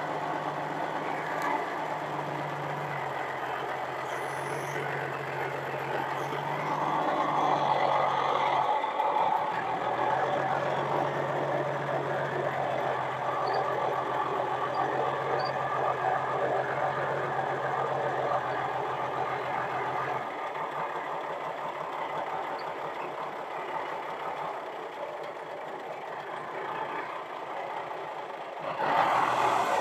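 Forklift engine running steadily as the truck is driven and steered carrying a loaded shipping container, getting louder near the end.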